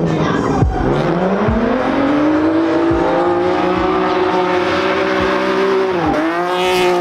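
Drift car engine revving hard, dropping about a second in and climbing back up, held high, then dipping briefly near the end, with tyres squealing as the car slides.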